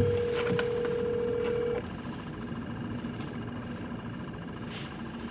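Telephone ringback tone of an outgoing call heard inside a car cabin: one steady ring tone about two seconds long, then a four-second pause. A brief knock comes as it begins, and a low steady cabin hum and a few faint clicks run under it.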